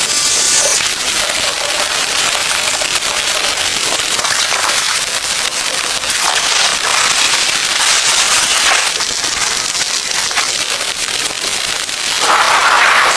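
Heavy rain pattering densely on a tent, a continuous crackling patter of drops. Near the end a louder rush swells briefly over it.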